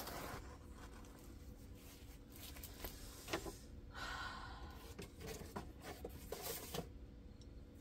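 Faint rustling and crinkling of a diamond painting canvas and its clear plastic cover being handled and put away, with a few soft taps.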